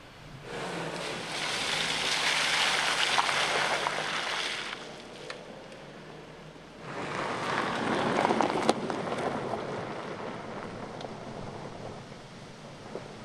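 A 2019 Suzuki Jimny driving over rough mud and gravel tracks: two loud rushes of tyre noise with splashing and crackling, the first starting about half a second in and lasting about four seconds, the second starting about seven seconds in and fading away.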